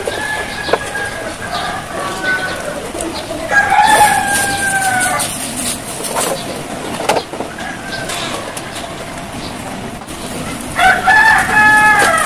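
A rooster crowing twice: one long call about three and a half seconds in and another near the end. A few short, sharp clicks sound between the calls.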